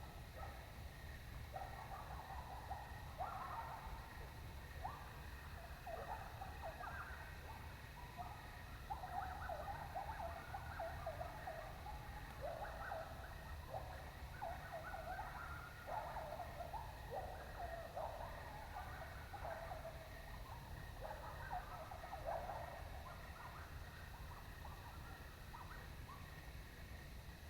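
A distant coyote pack in a chorus of overlapping yips and short wavering howls with quick rises and falls in pitch, running on for over twenty seconds.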